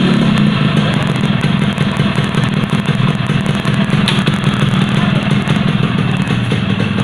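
Yamaha RX-King motorcycle's two-stroke single-cylinder engine running steadily.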